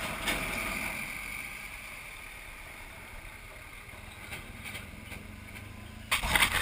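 Motorcycle riding through town traffic: steady engine, tyre and wind noise, with a tanker truck running close alongside in the first couple of seconds. About six seconds in, sudden loud rough buffeting on the microphone starts.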